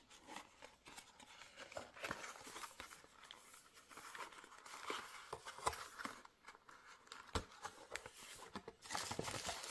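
Faint rustling of cardboard and paper packaging as a black cardboard phone-box insert is slid open and a white paper documentation folder is unfolded, with scattered small clicks and scrapes. The rustling gets busier near the end.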